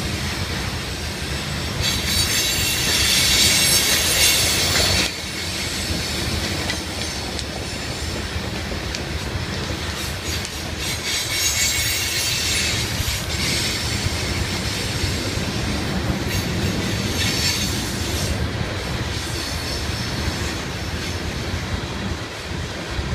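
BNSF coal train's hopper cars rolling past with a steady rumble of wheels on rail. High-pitched wheel squeals come and go over it: loudest from about two to five seconds in, where the squeal cuts off suddenly, then again around eleven to thirteen and seventeen seconds in.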